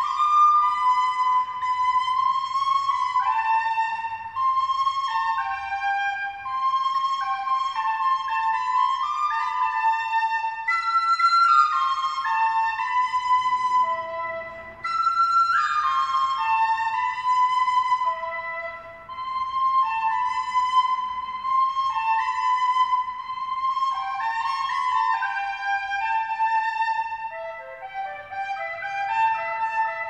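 Music: a single melody of held and stepping notes on a flute-like wind instrument, with a short break in the phrase about halfway through.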